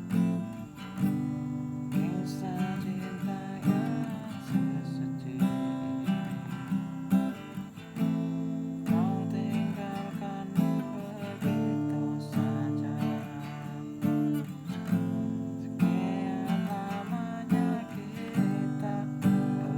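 Acoustic guitar strumming chords in a steady rhythm, with a man's voice singing along over it.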